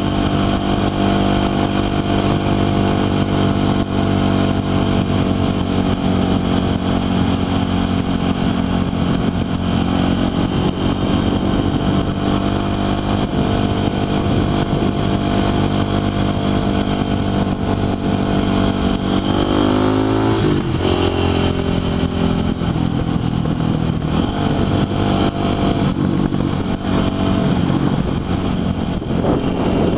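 Motorcycle engine running steadily under way, with wind noise. About twenty seconds in, the engine note rises, drops sharply and climbs again.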